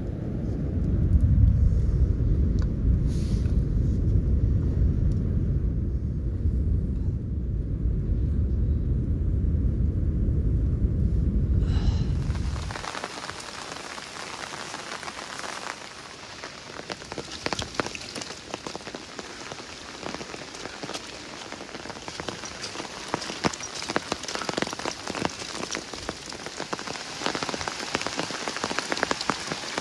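Wind rumbling on the microphone with a deep, loud noise. About twelve seconds in it cuts abruptly to steady rain falling on a surface, with many sharp drop ticks.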